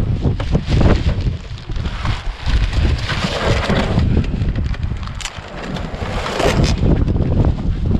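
Strong wind buffeting the microphone, a loud uneven low rumble that rises and falls in gusts, with a few short crackles over it.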